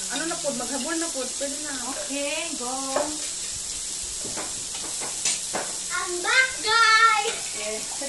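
Pork belly and bacon-wrapped enoki mushrooms sizzling steadily on a tabletop grill plate, with a few clicks of utensils in the middle. A voice makes unclear sounds over it in the first few seconds and more loudly about six seconds in.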